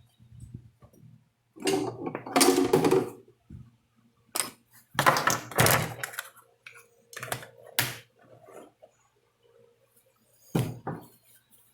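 Irregular knocks, clunks and rattles of tools and parts being handled on a workbench, a cluster of them about two seconds in and again from about five to eight seconds, with one last knock near the end.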